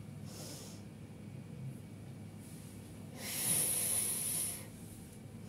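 A woman breathing hard during toe-touch stretches: a faint breath about half a second in, then one long, loud breath about three seconds in as she straightens up.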